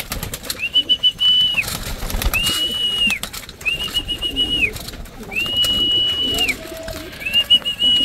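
A high whistle repeated about every second and a half, six notes in all, each held for nearly a second at an even pitch, some plain and some with a warbling top. Pigeons feeding at a grain tray make soft pecking clicks and wing flaps between the notes.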